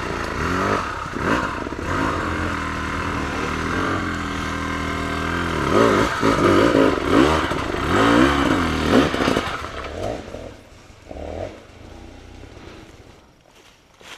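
Off-road motorcycle engine revving up and down in repeated bursts under hard load on a steep, loose hill climb, with the rider getting bogged down; loudest in the middle, then fading out over the last few seconds.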